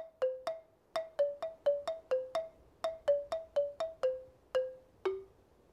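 A simple tune of short struck notes on a mallet instrument, about four notes a second, ending on a lower note about five seconds in.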